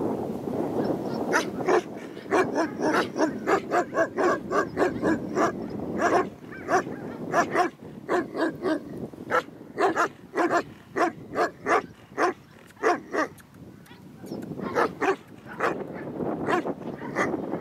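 German shepherd barking repeatedly, about three short barks a second, with a brief break about three-quarters of the way through before the barking resumes.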